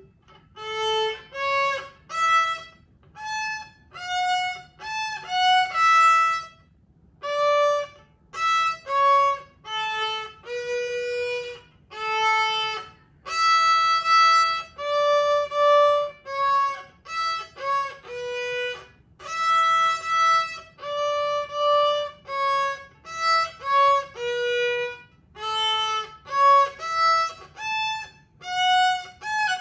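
A beginner violinist, three months into lessons, playing a simple tune on the violin in separate bowed notes, each followed by a short break before the next.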